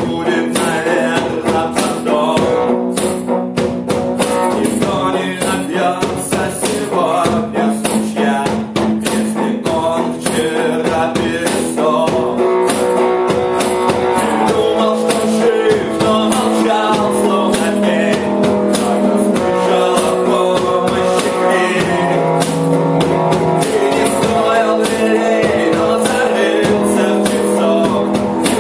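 A rock song played on guitar and drum kit, with singing, at a steady loud level.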